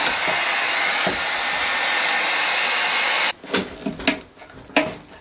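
Heat gun blowing steadily on a glued chair joint, switched off a little over three seconds in. Then a run of sharp wooden clicks and knocks as the spindle is worked back and forth in its tight joint.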